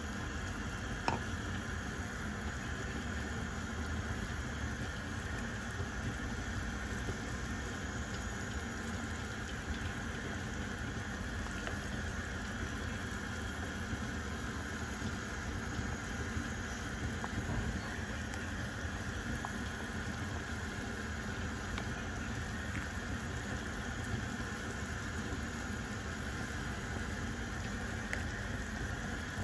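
Pork soup boiling hard in a clay pot: a steady bubbling, with a light knock about a second in.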